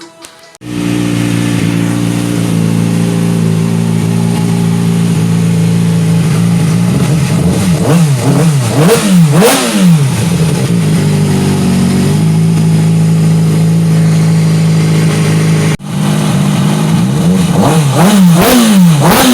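2007 Kawasaki ZX-6R's inline-four engine idling steadily, with the throttle blipped in several quick revs about halfway through and again near the end. The sound cuts in abruptly just under a second in and drops out briefly about three-quarters of the way through.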